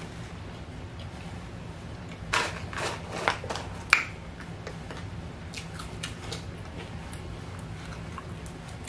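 McDonald's french fries being picked from a paperboard carton and eaten: a cluster of crinkles and crunches about two to four seconds in, then faint chewing clicks, over a steady low hum.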